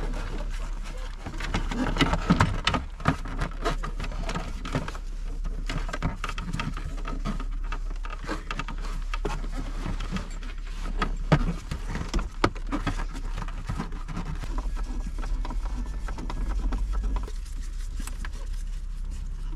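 Plastic dashboard trim panels of a Fiat Ducato being refitted by hand: scattered clicks, knocks and rattles of hard plastic being pushed and clipped into place, with a steady low hum underneath.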